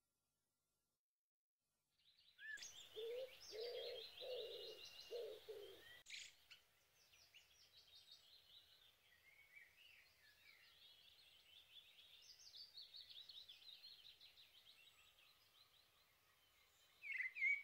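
Faint birdsong: small birds chirping and trilling in quick, high strokes, with four low cooing notes a few seconds in. It starts after about two seconds of silence and grows louder near the end.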